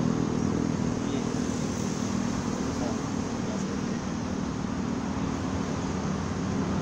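Steady noise of road traffic, with no single vehicle standing out.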